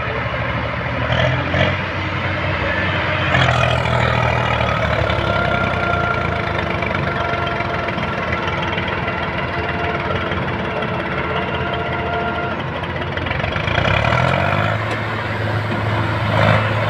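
Diesel engines of a Preet 987 combine harvester and a stuck tractor running steadily under load as the combine tries to pull the tractor free. The engine note rises about fourteen seconds in.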